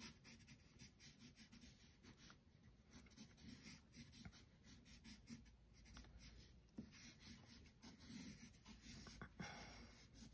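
Faint scratching of a graphite pencil on drawing paper, in many quick, short scribbling strokes.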